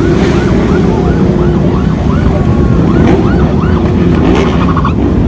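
Police siren in fast yelp sweeps, rising and falling about four times a second, changing near the end to a brief rapid pulsing tone. Under it runs the steady noise of many motorcycle engines in the convoy.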